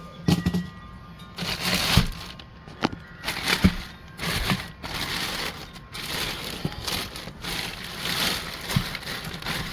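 Cardboard and packing material rustling and scraping as a large battery is unpacked from its box, with several sharp knocks along the way.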